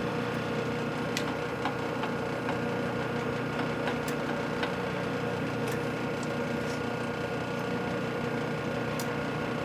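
Metal lathe running, its spindle turning at a steady speed with an even hum, while a part is checked for runout with a dial indicator. A few light clicks sound over the hum.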